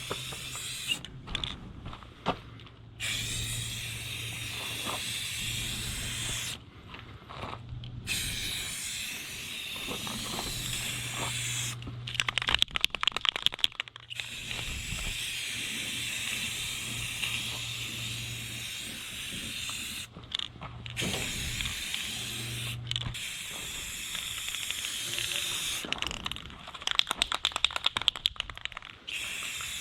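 Aerosol can of clear coat spraying in long hissing passes with short pauses, and twice shaken hard so the mixing ball rattles fast inside the can.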